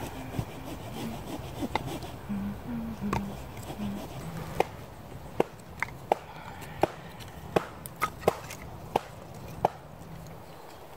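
Split dry sticks knocking and clacking against each other as they are laid crosswise into a small fire lay. Faint rubbing and handling at first, then a string of about ten sharp wooden clicks in the second half.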